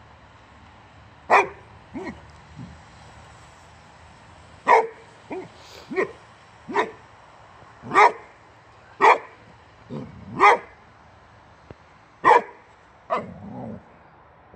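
Boxer dog barking at a wheelbarrow tyre: about seven loud single barks at uneven intervals, with softer barks in between and a low growl near the end.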